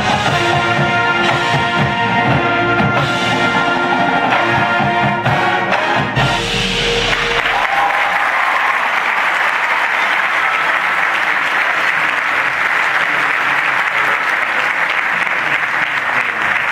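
Marching brass and percussion play the end of a field-show piece, closing on a held chord with a low drum hit about six seconds in. A stadium crowd then applauds and cheers for the rest of the time.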